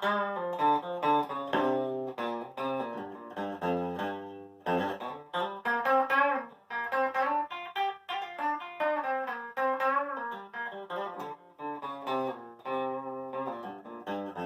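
Harley Benton TE-30 Tele-style electric guitar on its bridge pickup, played fully clean through a Marshall Origin amp head with no compression, reverb or tremolo: a run of picked notes, with a short break about four and a half seconds in.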